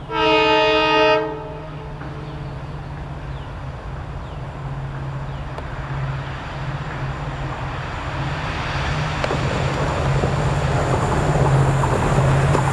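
Diesel locomotive horn blowing one blast of about a second. After it the locomotive's engine drones steadily and grows louder as the passenger train approaches, with rolling rail noise building toward the end.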